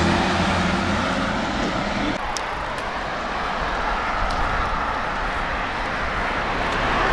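Road traffic passing close by: a motor vehicle's low engine hum that fades out about two seconds in, then a steady rushing noise of tyres and air, growing louder again near the end as another vehicle approaches.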